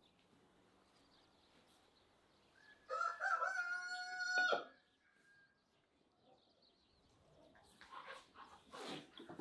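A rooster crows once: a single call of just under two seconds that rises at the start, holds its pitch, then breaks off. Faint clicks and scrapes of a fork on a plate come near the end.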